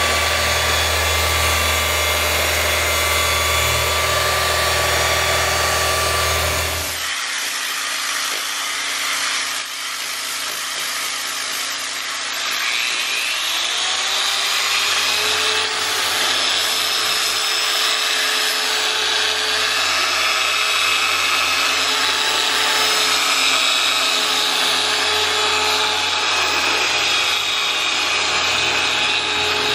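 Electric paint polisher running with its pad on a car hood's paint. One machine with a low drone cuts off about seven seconds in. Around thirteen seconds in, a polisher spins up with a rising whine and then runs steadily.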